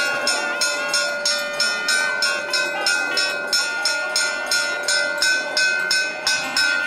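Temple bell rung steadily and fast, about four strikes a second, its ringing tone held between strikes.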